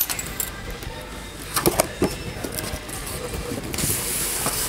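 Cardboard packaging being handled and opened: a few taps and knocks, then about four seconds in a papery scraping hiss as the inner box slides out of its cardboard sleeve.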